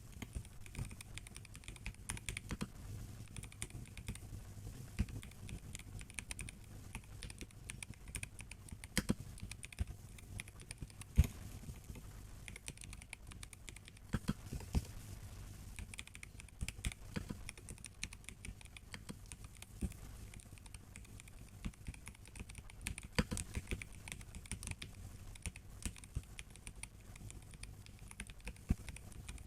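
Continuous typing on a MelGeek Mojo84 mechanical keyboard with brown switches: an irregular stream of key clicks, with one louder keystroke about eleven seconds in.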